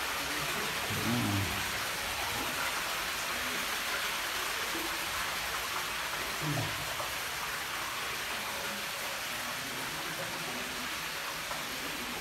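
Steady hiss of falling water: a small grotto fountain, a thin stream poured from a statue's vase splashing into a rock pool.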